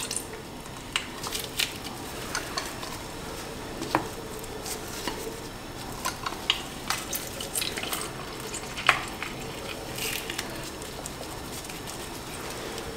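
Handheld citrus press squeezing lime halves over a bowl of chopped salsa: scattered light clicks and crackles of rind and pulp being crushed, with juice dripping onto the chopped vegetables.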